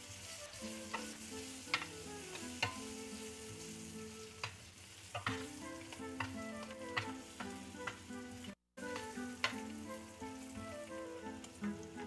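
Whole garlic cloves sizzling in olive oil in a sauté pan, a steady hiss broken by scattered sharp clicks of a utensil stirring against the pan. The sound cuts out for a moment about two-thirds of the way through.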